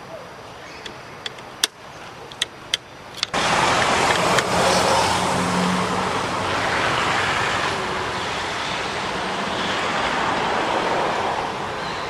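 A few sharp clicks. About three seconds in, a loud, steady rushing noise starts suddenly and keeps on.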